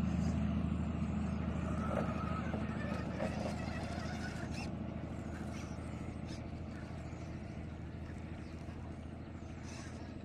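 RC rock crawler's electric motor and gears running with a steady low hum that slowly fades, with a few light clicks as it drives down a step.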